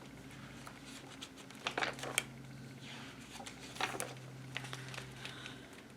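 Paper rustles and soft clicks of a picture book being handled and its pages turned, a few separate crackles over a faint steady hum.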